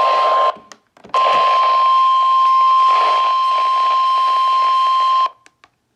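NOAA Weather Radio 1050 Hz warning alarm tone heard through a weather radio receiver: one steady single-pitched tone over static hiss. It sounds briefly, drops out for about half a second, then holds for about four seconds and cuts off sharply. The tone signals an urgent warning broadcast, here a severe thunderstorm warning.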